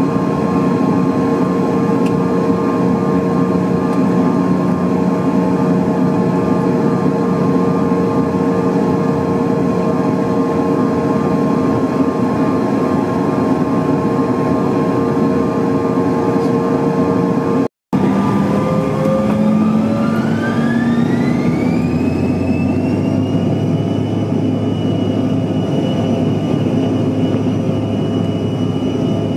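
CRJ-900's rear-mounted General Electric CF34 turbofans heard from inside the cabin: a steady idle whine and hum, then, after a split-second break in the sound, the whine rises in pitch over a few seconds and settles at a higher, steady pitch as the engines spool up to take-off power.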